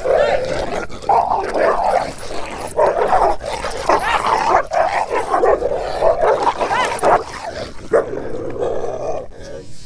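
Dogs vocalizing almost without a break as a loose dog tussles with a leashed Siberian husky: a run of wavering whines, yips and barks, easing off near the end.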